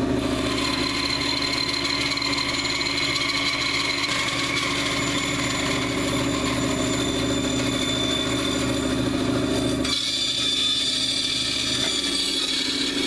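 Bandsaw running with its blade cutting through a small log, slicing a half-inch slab off the back. It makes a steady machine hum with a whine over it, and the deeper hum thins out about ten seconds in.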